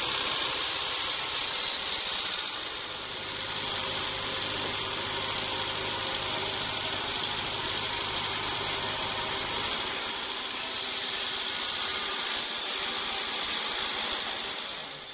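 Band sawmill's blade cutting through a teak log, a steady high-pitched hiss of sawing. A low machine hum under it fades out about two-thirds of the way through.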